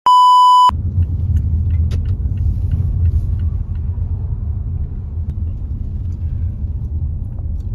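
A loud electronic beep at one high pitch for under a second, then a steady low rumble of a car on the move.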